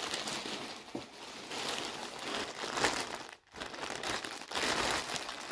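Clear plastic poly bag around a new garment crinkling as it is handled and turned over: a steady crackly rustle, with a brief pause about three and a half seconds in.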